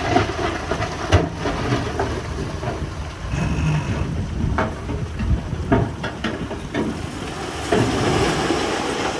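Diesel engine of heavy earthmoving machinery running with a low rumble, with repeated metallic clanks and knocks and a short high-pitched tone about three and a half seconds in.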